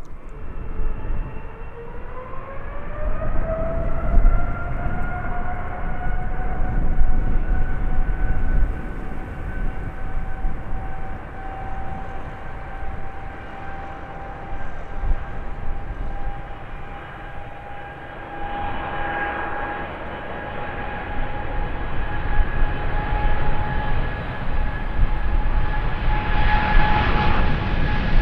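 Airliner's engines running with a high whine that rises in pitch over the first few seconds, then holds steady over a low rumble that swells twice in the second half.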